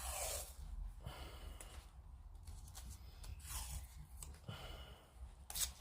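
Faint rustling and scraping from handling masking tape and small plastic model-kit parts, a few soft swishes spread through, with a couple of sharp clicks near the end.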